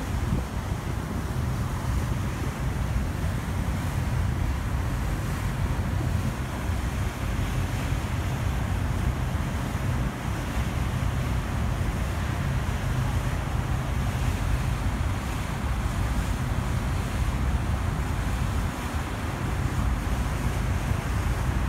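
Sightseeing cruise ship Santa Maria under way: a steady low engine rumble with an even hiss of wind and water against the hull.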